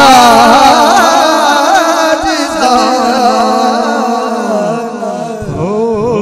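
Male voices chanting an Urdu devotional salam unaccompanied, in long, drawn-out, wavering phrases, easing off slightly near the end.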